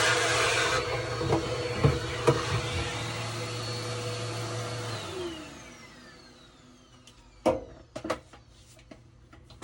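Vacuum cleaner sucking lint out of a dryer, running steadily with a few sharp clicks. It is switched off about five seconds in and the motor winds down, its whine falling in pitch. A few sharp knocks follow near the end.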